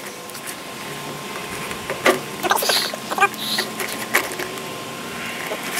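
A small cardboard box being handled and opened by hand: a few short scrapes and taps over a steady faint hum.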